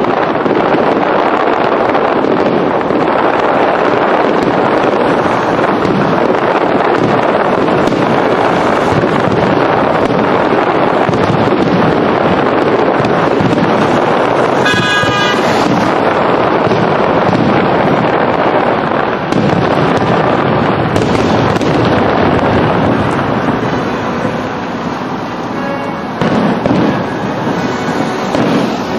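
Aerial fireworks going off in a dense, continuous barrage of bangs and crackling, thinning out in the last few seconds. A brief high tone sounds about halfway through.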